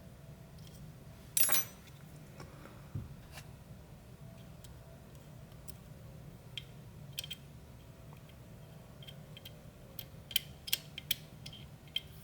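Small metallic clicks and scrapes of a homemade two-pronged feeler-gauge tool being worked inside a Fichet 450 lock as the plug is turned, feeling for the two holes that drive the latch. One louder scrape comes about a second and a half in, and a quick run of sharp clicks near the end.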